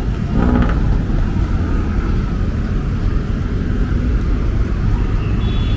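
Steady low rumble of city road traffic heard outdoors.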